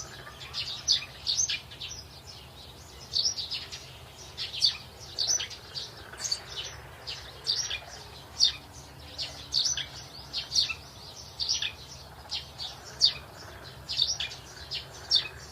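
Small birds chirping: short, high chirps in quick runs, several a second, over a faint steady low hum.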